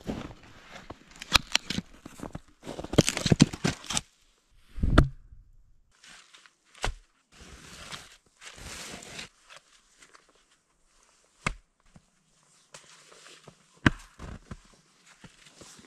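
Irregular rustling and crunching broken by scattered sharp knocks and cracks, with short pauses between.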